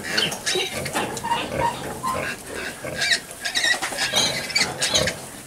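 A litter of piglets suckling at a sow, squealing and grunting in many short, overlapping high-pitched calls.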